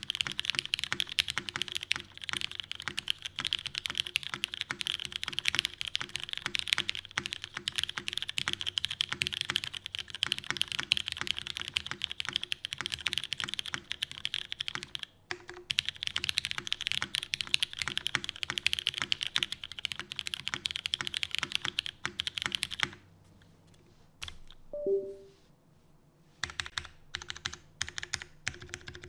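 Fast, continuous typing on a custom TGR x Gaf 910 mechanical keyboard with an aluminium plate, lubed Cherry MX Brown switches and GMK keycaps, with a short break about halfway. The typing stops about three-quarters of the way in, a brief falling two-note sound follows, and then a few single key presses come near the end.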